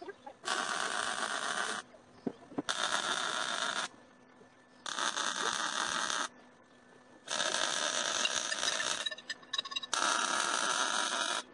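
Wire-feed welder arc crackling and sizzling in five short welds of one to two seconds each, with brief pauses between them as steel is tacked together.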